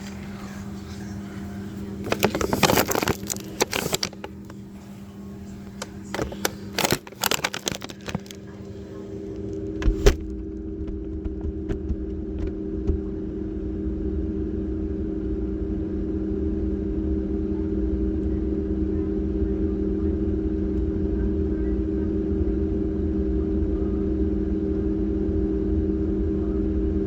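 Clattering and rattling as a phone is handled and set down inside a refrigerator, then a sharp knock about ten seconds in as the door shuts. After that the sound turns muffled and the refrigerator's steady hum and low rumble carry on.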